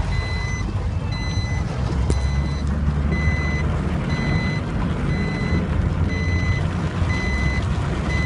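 Vehicle reversing alarm beeping steadily, about one short high beep a second, over the low rumble of a running engine.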